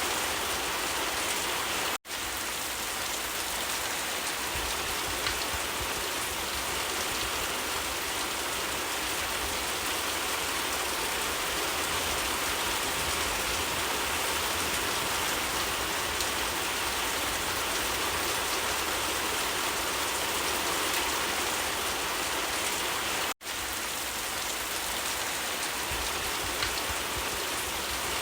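Steady rain falling on leaves: a dense, even patter without pauses. It cuts out to silence for an instant twice, about two seconds in and near the end.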